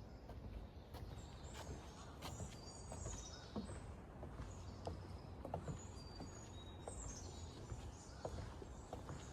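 Songbirds chirping: repeated short high chirps that fall in pitch and a few brief whistled notes, over a steady low rumble of outdoor background noise.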